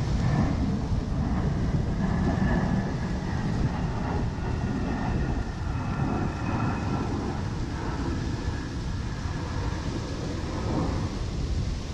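Wind buffeting the microphone in a steady low rumble. Through the middle few seconds a faint distant hum with a few steady tones rises over it, then fades.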